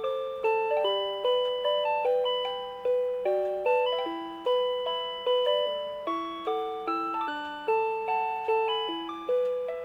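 Rhythm Clock Melody Club melody alarm clock playing a J-pop tune from its plug-in melody cassette: clean electronic chime-like notes with chords, each note struck and dying away, about two notes a second.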